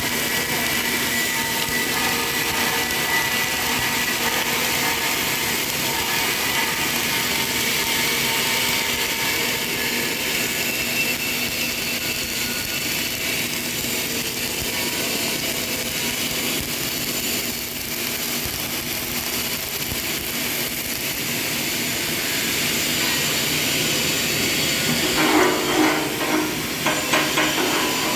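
CO2 gas-shielded (MIG/MAG) welding arc, crackling and sizzling steadily as the wire feeds into the weld, with a few louder irregular pops near the end.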